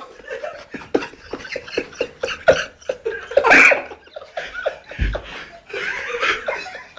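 Several men stifling laughter, snickering and chuckling under their breath in quick, breathy bursts, with a louder laugh about three and a half seconds in and a soft low thump about five seconds in.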